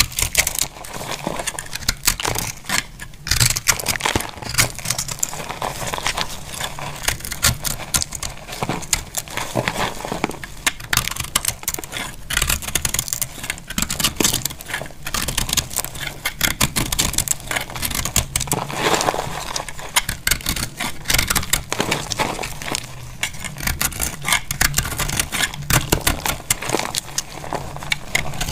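Dry soap being cut with a snap-off utility knife blade: a dense, crisp crackling and scraping as the blade shaves and breaks off brittle flakes and chunks.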